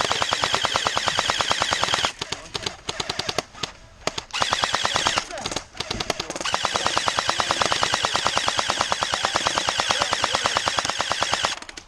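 Airsoft electric gun firing on full auto: a burst of about two seconds, a few short bursts, then one long burst of about five seconds from the middle almost to the end, each a rapid even run of clicks.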